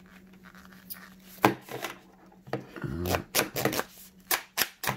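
Sharp plastic clicks and knocks from an Edifier gaming headset being handled and flexed: a couple about one and a half seconds in, then a quick run of clicks through the last two seconds.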